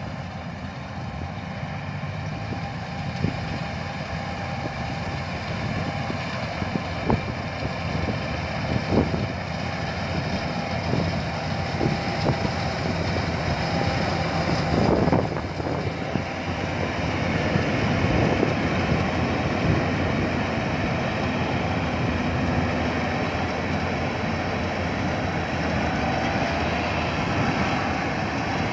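Yanmar AW82V rice combine harvester working: its diesel engine runs steadily under load with the cutting and threshing machinery going, getting louder over the first several seconds as the machine comes nearer. A few knocks rise above it, the biggest about halfway through.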